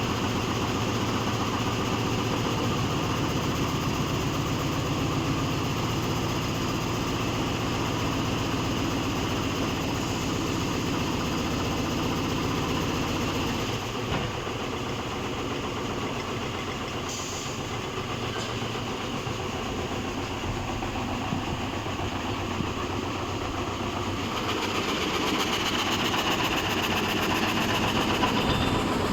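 Frame saw machine running steadily, with a dense mechanical clatter. The low rumble drops off about halfway through, and a higher hiss grows near the end.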